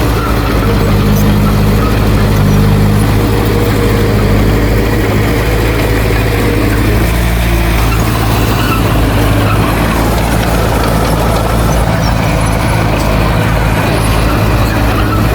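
Heavy diesel engine of earthmoving equipment running loud and steady, its note shifting a little about halfway through.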